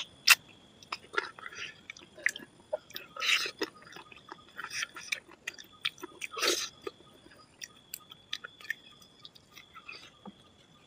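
A man chewing and smacking his lips while eating chicken curry and rice: irregular short smacks and clicks, the loudest at the very start and about three and six and a half seconds in.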